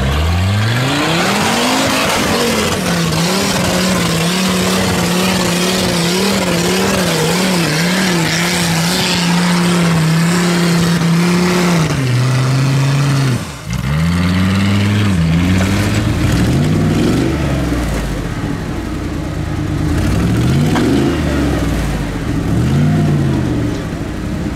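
Engine of a custom-built 4x4 trial buggy revving up hard and held at high revs for about ten seconds as it climbs over rocks, then dropping. After a short break, another buggy's engine revs up and down in short bursts as it works over a rock step.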